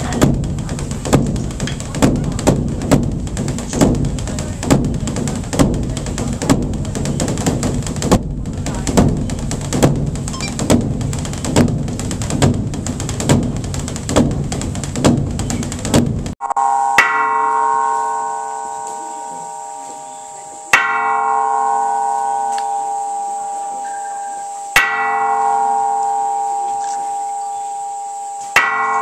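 Large Korean temple drum (beopgo) beaten with two wooden sticks in a fast, steady rolling rhythm. About sixteen seconds in it cuts to a hanging cloud-shaped metal gong (unpan) struck about every four seconds, each stroke ringing on with several tones and fading slowly.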